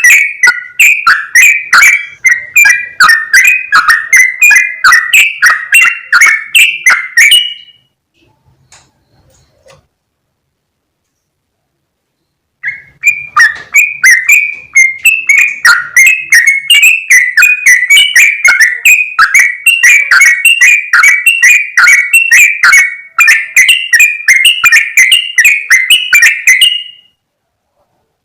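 Yellow-vented bulbul (trucukan) giving a loud, rapid chattering call of bubbly notes, about three a second. It breaks off for about five seconds in the middle, then resumes.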